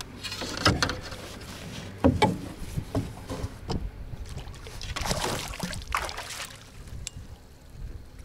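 Hollow knocks of gear against a canoe hull, the sharpest a pair about two seconds in, and a stretch of water splashing about five seconds in, while a hooked fish is fought from the canoe.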